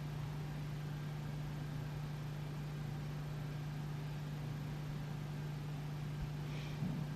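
Steady low hum and even hiss of a quiet house, with a faint brief sound near the end.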